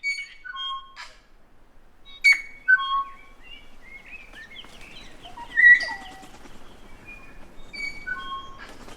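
New Zealand kaka calling: clear whistled notes that step down in pitch in short runs, mixed with sliding whistles and a few sharper, louder calls.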